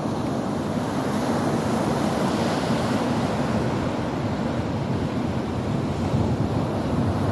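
Ocean waves washing on the shore in a steady rush, with some wind noise on the microphone.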